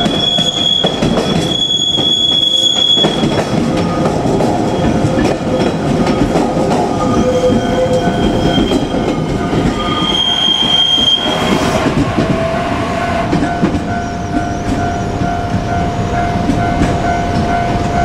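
JR Kyushu 817 series electric train running slowly over yard tracks and points, its wheels rumbling with a high-pitched squeal that comes and goes on the curves.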